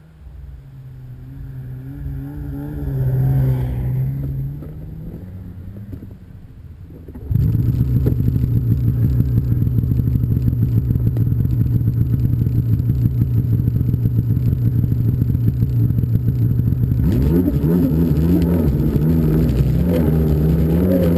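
Snowmobile engines. For the first few seconds an engine rises in pitch and loudness and then fades. About seven seconds in the sound jumps abruptly to a louder, steady engine run, which turns uneven with shifting pitch near the end.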